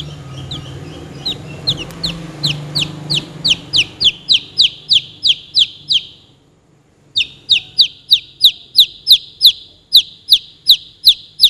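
Baby chick peeping: a long run of loud, short, falling peeps, about three a second, that breaks off for about a second midway and then starts again.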